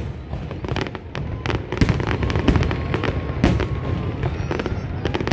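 Fireworks display: an irregular run of sharp bangs and crackles over a continuous low rumble.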